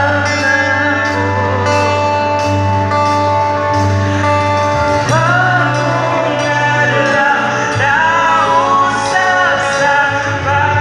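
Live band playing through outdoor PA speakers: a singer over electric guitar, a steady bass line and drums with regular cymbal strikes.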